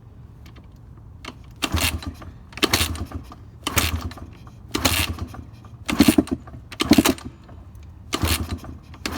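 Gas Gas EC250 two-stroke dirt bike engine being turned over again and again, seven strokes about a second apart, each with a low gurgling sound, without catching. The engine won't start, and the owner takes the gurgle as the sign of some fault.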